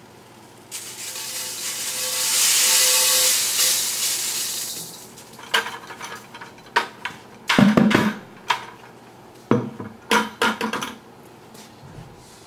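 Dry sorghum grain poured from a plastic bucket down the sheet-metal duct of a homemade winnowing machine: a long hissing rush that swells and fades over about four seconds. It is followed by a series of separate knocks and clatters against the metal.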